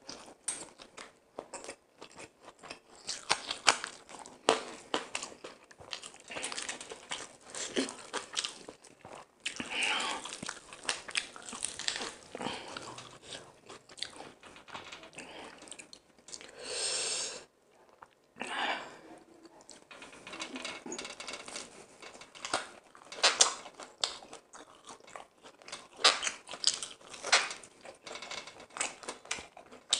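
Close-miked eating: biting and chewing crispy fried chicken and biryani rice, with many irregular crunches and mouth sounds. One longer, louder sound comes about seventeen seconds in.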